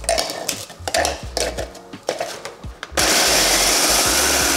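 Rusks snapped by hand into a mini chopper bowl, a run of short dry cracks. About three seconds in, the electric mini chopper starts and runs steadily, grinding the rusks into breadcrumbs.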